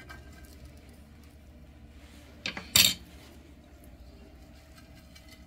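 Metal fork clinking against a glass baking dish, two sharp clinks close together about two and a half seconds in.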